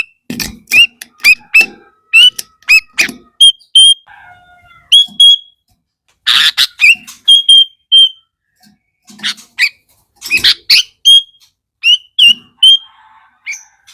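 Sooty-headed bulbul (kutilang) calling loudly in a fast run of short, sharp notes, many sweeping quickly upward, with a few brief gaps between bursts.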